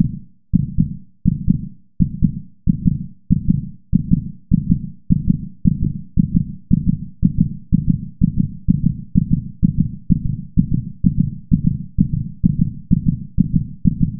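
Low heartbeat-like thumps from a suspense sound effect, evenly spaced and speeding up steadily from about one and a half to about two and a half beats a second.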